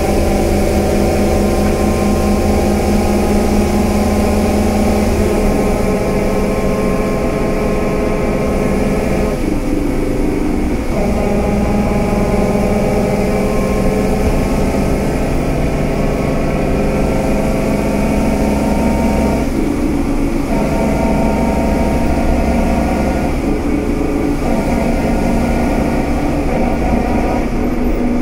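Scania K320UA bus's diesel engine running continuously, its note changing several times as the engine speed shifts.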